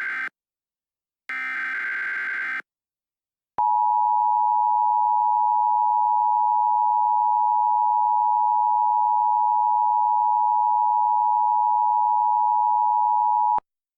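Emergency Alert System tones. The last two buzzy digital data bursts of the SAME header come first, the second about a second long. After about a second's pause the steady two-tone attention signal sounds for about ten seconds, then cuts off suddenly.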